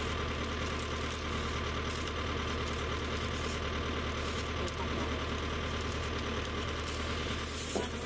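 An engine idling steadily, a constant low hum with a few steady higher tones over it.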